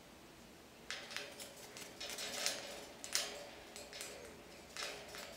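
Irregular scrapes, clicks and rustles of a young sun conure clambering on the cage bars and a hanging toy, starting about a second in.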